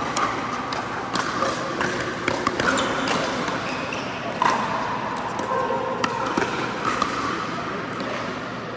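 Pickleball play on an indoor court: irregular sharp pops of paddles striking the plastic ball and the ball bouncing on the floor, over a steady background of other play.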